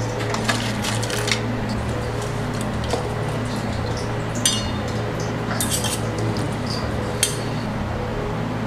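A handful of light, sharp clinks and taps of a utensil against a stainless steel mixing bowl as salad vegetables are tossed and handled, over a steady low hum.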